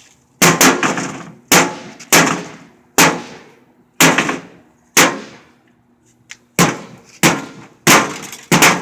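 Rubber mallets hammering a microwave oven: about a dozen hard blows at uneven intervals, each with a brief ringing decay from the oven's casing.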